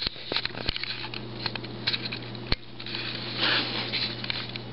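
Handling noise from a handheld camera: scattered small clicks, one sharper knock about two and a half seconds in, and a brief rustle about three and a half seconds in, over a steady low hum.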